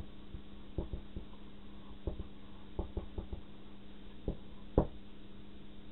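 Marker pen writing on a small handheld whiteboard: a string of short taps and strokes, the sharpest about a second in and about five seconds in, over a steady low hum.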